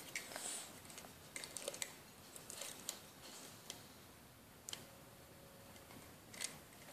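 A quiet room with faint scattered clicks and ticks, and a brief faint hum a little past the middle.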